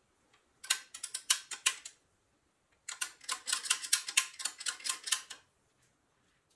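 Winch crank on a pressed-steel toy tow truck being turned by hand, its ratchet clicking rapidly as the tow chain winds in. There are two runs of quick metal clicks: a short one about a second in and a longer one of about two and a half seconds from about three seconds in.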